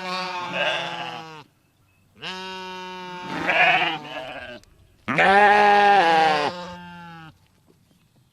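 Sheep bleating: three long bleats with short pauses between them.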